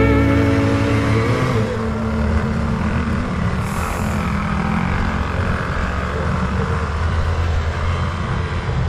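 Off-road motorcycle engine running steadily as it is ridden, a continuous low rumble.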